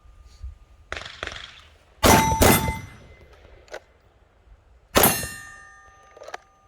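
Pistol shots ringing steel targets: two hits close together, then a third about two and a half seconds later, each a sharp clang that rings on and fades.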